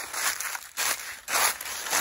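Footsteps crunching through a thick layer of dry fallen leaves at a steady walking pace, a crackling crunch with each step.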